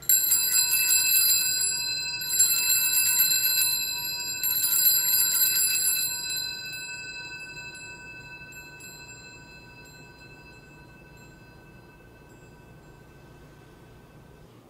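Altar bells rung three times at the elevation of the consecrated host, each ring a quick jingling cluster over clear bell tones. The ringing slowly dies away after the third ring.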